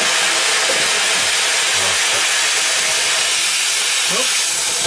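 Firework wheel burning, its fountain drivers giving a steady hiss of spraying sparks.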